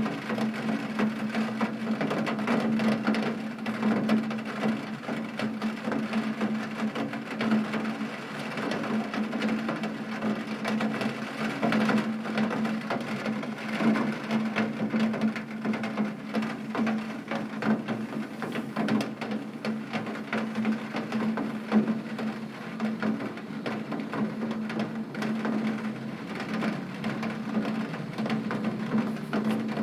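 Heavy rain pattering on a window pane, a dense, unbroken spatter of drops over a steady low hum.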